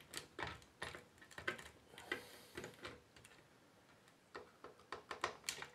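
Hard plastic parts of a disassembled Nerf Ultra 2 blaster clicking and knocking as they are handled, in irregular light taps with a quick cluster near the end.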